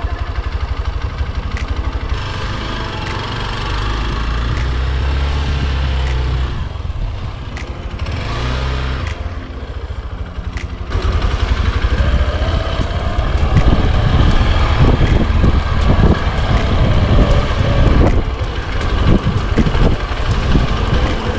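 Single-cylinder dual-sport motorcycle engine running at low revs on a rough off-road trail, its note rising and falling as the throttle is worked. About halfway through it gets louder and rougher, with many short knocks.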